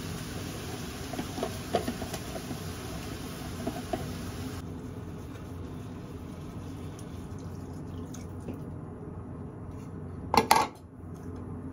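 Long wooden cooking chopsticks tapping and scraping in a frying pan, light scattered clicks over a steady hiss. Near the end come two loud, sharp knocks in quick succession.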